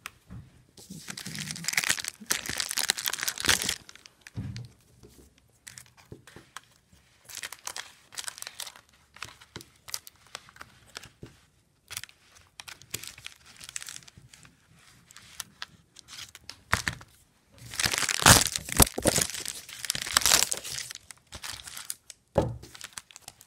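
Package being opened by hand: packaging crinkling and tearing in irregular bursts, loudest about one to four seconds in and again about eighteen to twenty-one seconds in, with scattered small clicks and rustles between.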